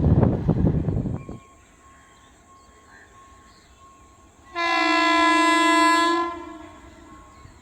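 Train noise with rattling wheel clicks, cutting off sharply about a second in. Then, after a quiet pause, one long blast of about two seconds from an Indian Railways locomotive horn, a single steady chord that fades out.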